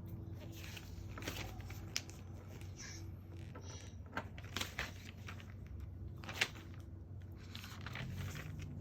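Plastic LEGO pieces being handled, giving a scatter of sharp clicks and rattles, the loudest about six and a half seconds in, over a steady low hum.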